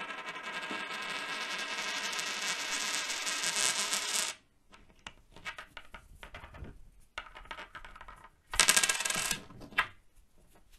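Metallic ringing rattle lasting about four seconds, growing louder until it cuts off abruptly, then scattered faint clicks and a short, loud burst of rattling about nine seconds in.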